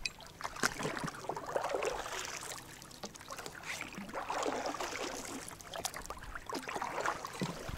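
Wooden oars being rowed in the oarlocks of a small metal boat: blades splashing and dripping as they dip and pull through the water, with knocks and creaks from oarlocks that have not been oiled.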